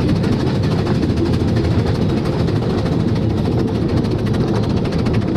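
Steady low rumble of a 15-inch-gauge steam train running along the line, heard from an open carriage.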